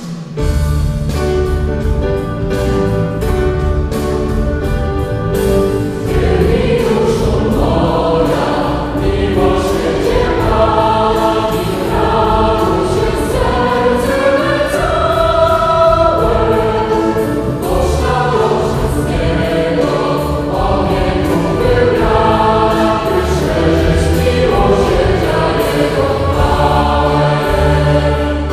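Mixed choir singing a sacred pop song into handheld microphones, amplified, over a band accompaniment with a steady low bass line. The music comes in suddenly at the start.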